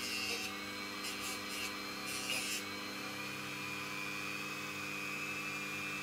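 Dremel rotary tool running at a steady whine, with a few short bursts of grinding hiss in the first three seconds as it cuts into a small part.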